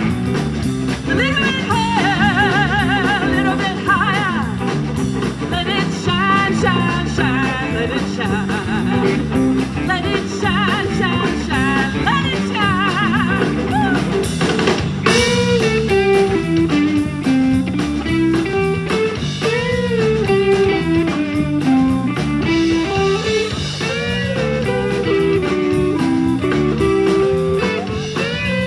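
Live blues-rock band with electric guitars, bass and drums playing an instrumental break, a lead line of bent, wavering notes over the rhythm section. About halfway through there is a crash, after which a lower melodic line wanders up and down.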